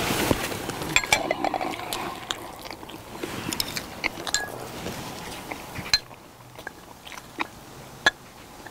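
People chewing mouthfuls of stir-fried pork with kimchi and rice, with scattered sharp clicks.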